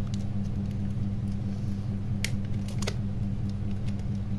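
Three sharp plastic clicks as the Nokia N71's plastic housing cover is pressed into place: one about two seconds in, then two close together just before the three-second mark. A steady low hum runs underneath.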